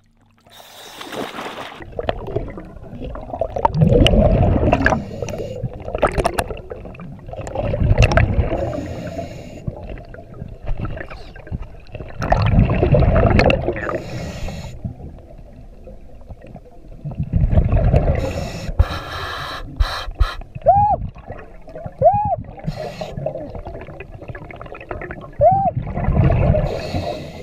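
Scuba diver breathing underwater through a regulator: gurgling bursts of exhaled bubbles about every four to five seconds, with several short rising-and-falling whines near the end.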